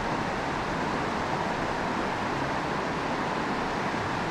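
Steady rush of creek water flowing over a riffle, an even hiss with no breaks.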